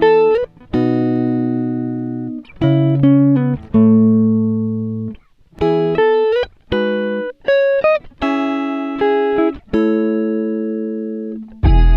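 Background music: guitar-like plucked chords, each struck and left to fade, several in a row with short gaps. A heavier bass comes in right at the end.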